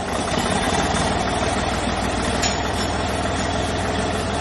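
Engine idling steadily, with an even low pulsing.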